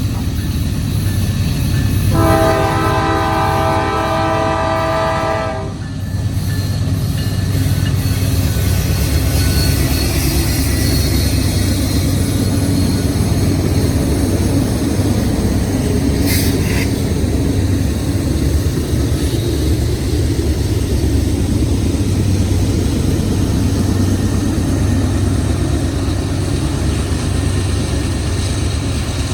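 Diesel locomotives hauling a loaded grain train up a steep grade under heavy load, a steady heavy rumble as they pull hard with sand on the rails for traction. A train horn blows for about three and a half seconds, a couple of seconds in.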